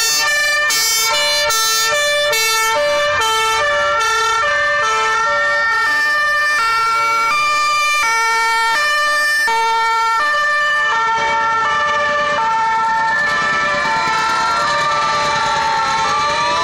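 Several fire engines' two-tone sirens sounding at once, each switching between a high and a low note about every half second and overlapping out of step. In the second half a siren that glides up and down in pitch joins them.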